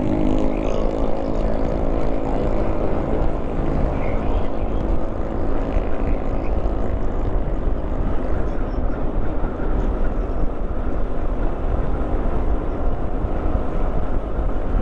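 Motorcycle riding along at road speed: the engine note is clearest in the first second, then mostly a steady rush of wind and road rumble.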